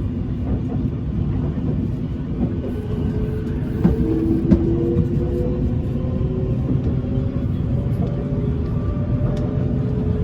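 BTS Skytrain car running between stations, heard from inside: a steady low rumble with a motor whine that rises slowly in pitch, and two sharp clicks about four seconds in.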